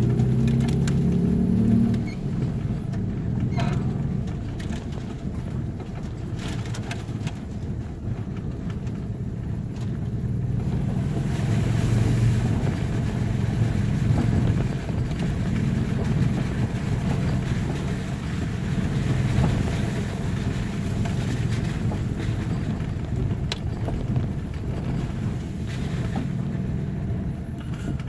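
Toyota FJ Cruiser's V6 engine running at low speed, with tyres working over a rough dirt forestry track, heard from inside the cabin. A few sharp knocks and rattles come as it bumps along.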